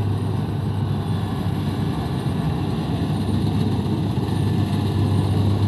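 Kubota DC-70 rice combine harvester's diesel engine running steadily with a low hum while the machine harvests.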